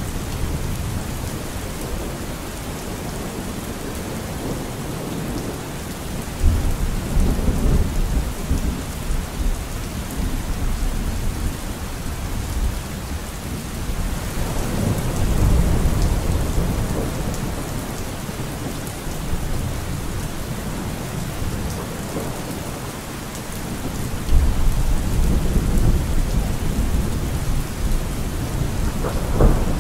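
Steady rain with rolling thunder, the low rumbles swelling about six seconds in, again around fifteen seconds, and again near twenty-five seconds.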